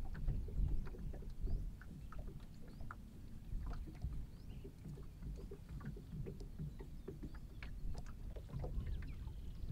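Rustling and light crackling of a large bundle of cut grass being handled and laid over a wooden roof frame for thatch, in many short irregular crackles. An uneven low rumble runs underneath.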